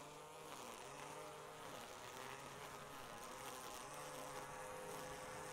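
Ryobi ONE+ 18V cordless string trimmer's electric motor running with a buzzing whine that wavers a little in pitch as the line cuts into tall grass and weeds.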